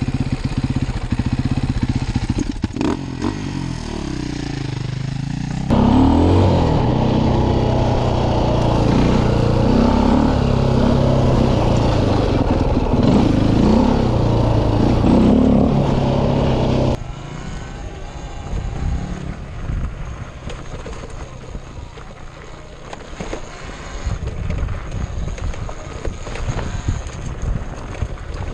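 A KTM 400 EXC enduro bike's 400 cc four-stroke single-cylinder engine running under way, its pitch rising and falling with the throttle. It turns sharply louder about six seconds in, then drops suddenly to a quieter, rougher rumble after about seventeen seconds.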